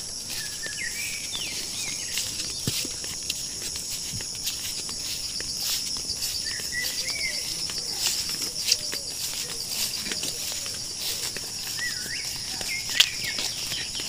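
A steady, high-pitched chorus of insects, with short bird chirps now and then. Footfalls and leaves brushing against the walker add scattered light clicks, one sharper snap near the end.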